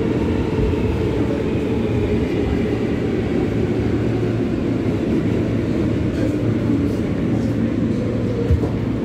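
New York City subway L train running, heard from inside the car: a steady low rumble of wheels on the track and the car's motors, with one short knock near the end.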